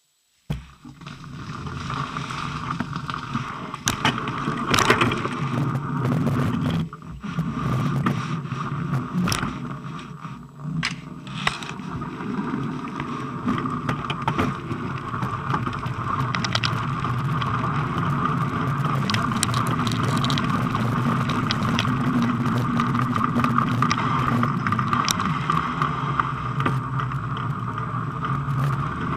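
Bicycle rolling over packed snow, picked up by a camera mounted on the bike: steady tyre and riding noise with frequent clicks and rattles from bumps, starting about half a second in.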